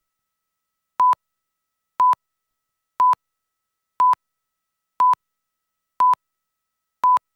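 Broadcast countdown slate tone: a short, single-pitch beep once a second, seven times, marking each second counted down before the commercial starts.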